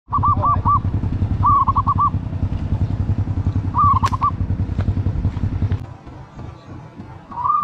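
Motorcycle engine running with a low, rapid, even pulsing that drops away about six seconds in. Over it, short runs of high chirping calls come three times early on and again near the end.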